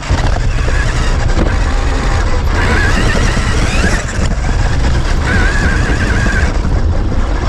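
Electric motor of a Traxxas RC truck whining as it drives off-road, heard close up from the onboard camera over a heavy, steady rumble. The whine rises in pitch about three seconds in, drops out briefly at four seconds, and holds steady near the end.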